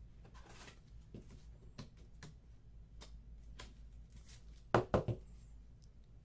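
Trading card boxes and cards being handled on a table: scattered light rustles and taps, with two louder knocks close together about five seconds in.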